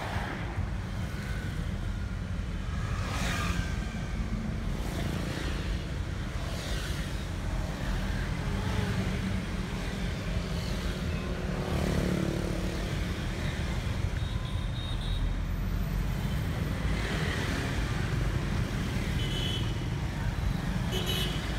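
Steady low rumble of road and engine noise inside a moving car in city traffic. Several brief swells of hiss come from cars and motorbikes passing close alongside.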